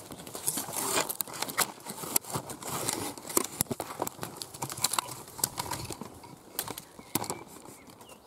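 Close rustling and crackling of twigs and leaves, with many sharp irregular clicks, as a camera is pushed up through hedge branches.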